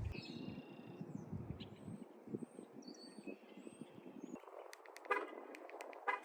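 Faint short bird chirps over low background noise, then a run of sharp clicks in the last two seconds.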